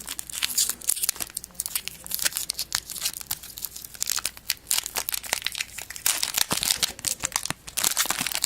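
A foil trading-card pack wrapper crinkling and tearing as it is pulled open by hand, with a dense, irregular crackle that comes and goes in spurts.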